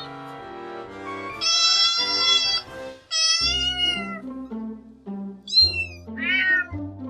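Domestic cat meowing four times: two long, drawn-out meows, then two shorter, higher calls, over background music.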